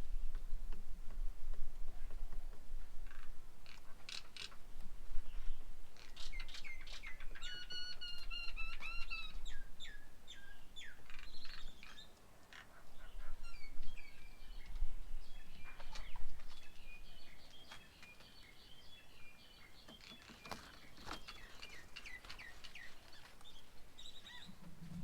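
Several birds chirping and calling: a busy run of short chirps and whistles, with a longer rasping call carrying several overtones about seven to nine seconds in. A low rumble sits underneath for the first half.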